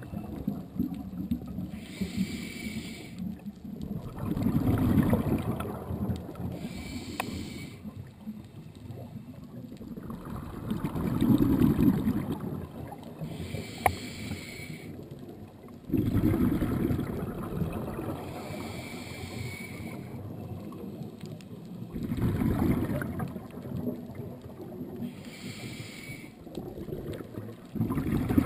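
A scuba diver's breathing heard underwater: a short regulator hiss on each inhale alternating with a longer bubbling rush of exhaled air, repeating about every six seconds.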